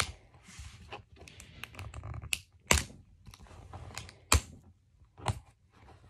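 Hard plastic shell of a Puppycorn Surprise toy egg being pried apart by hand: scattered light plastic clicks and rubbing, with four sharper knocks in the second half.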